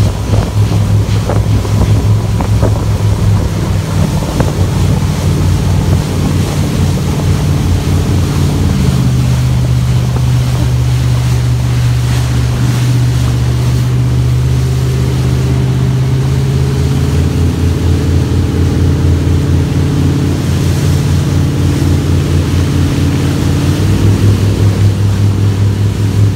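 Motorboat engine running under way, with wind buffeting the microphone; the engine note rises about a third of the way in and drops back near the end.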